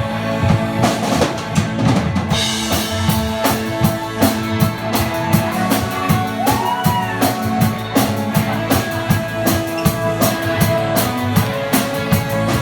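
Instrumental passage of a rock song: a full drum kit playing a steady beat under sustained guitar and bass, with a bending lead note about seven seconds in.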